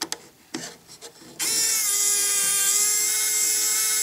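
Small handheld power drill with a screwdriver bit running as it drives a servo mounting screw into the plywood servo mount, cutting threads in the wood. A steady high whine starts about a second and a half in, its pitch sagging slightly as it gets going.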